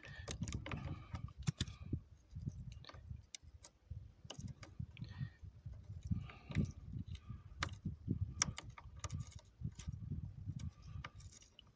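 Light metallic clicks and rattles at irregular intervals, with low handling noise, as a bolt is turned into freshly re-tapped threads.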